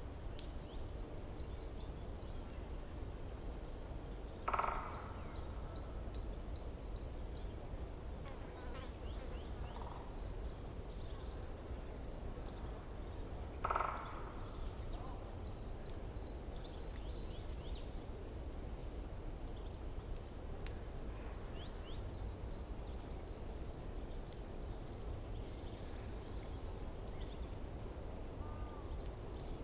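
A songbird repeating a short phrase of rapid high chirps, each lasting two to three seconds, about every four to five seconds. Three brief, louder, lower calls stand out, about four and fourteen seconds in and near the end. A low steady rush lies underneath.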